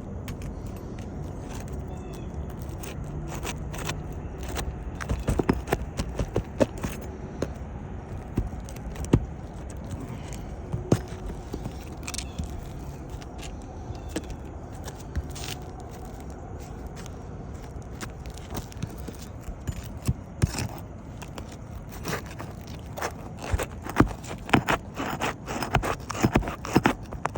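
Scraping and irregular sharp clicks of hand tools working a damaged asphalt roof shingle loose, busiest about five seconds in and again in the last few seconds, over a steady low rumble.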